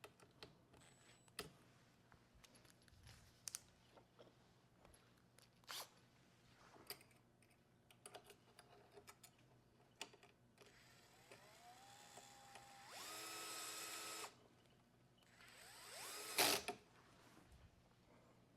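Small electric screwdriver running twice, its whine rising in pitch and then holding steady, the second run ending in a sharp click about sixteen seconds in. Light clicks and taps of tools and parts are handled in between.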